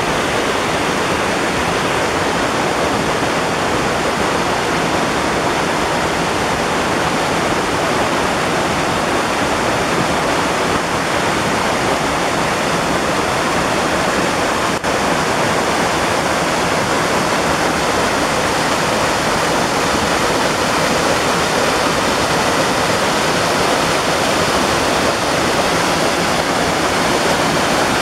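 Small waterfall on a stream: water pouring over rocks into a pool, making a steady rushing sound.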